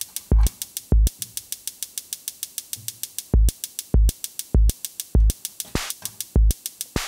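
Sampled electronic drum beat from an Erica Synths Sample Drum module, sequenced by a Make Noise 0-CTRL. Quick hi-hat ticks run under kick drum hits and a few snare hits, and the uneven spacing of the kicks shows fills being played live on the sequencer's touch plates.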